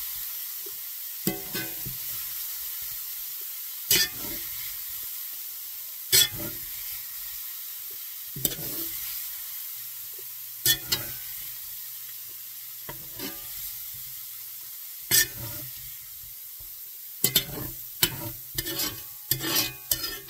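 Elk meat sizzling in a hot frying pan, with a utensil knocking and scraping against the pan every couple of seconds as the meat is moved out into a bowl. The knocks come in quick clusters near the end.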